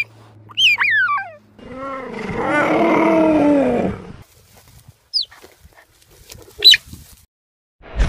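Cheetah calls: high, bird-like chirps that fall quickly in pitch, with a longer, lower wavering call of about two seconds in the middle and two more short chirps later.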